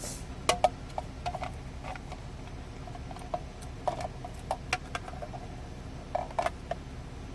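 Scattered clicks and light knocks of hard plastic as the Krisbow car vacuum's dust container is handled and fitted back together, with the motor off.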